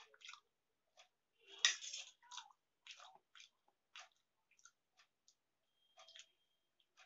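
Close-up chewing of forkfuls of Maggi instant noodles: a string of short, separate mouth sounds, the loudest and longest about two seconds in.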